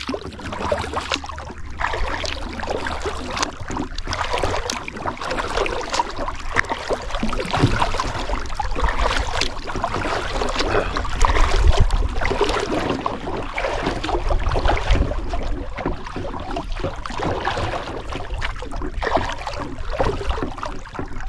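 Kayak paddle strokes splashing and water sloshing along the kayak's hull, with a low rumble of wind on the microphone.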